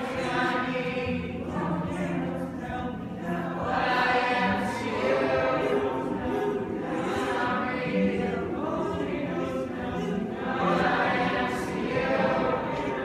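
Many voices singing together like a choir, the phrases swelling and falling, over low held notes: a concert audience singing along.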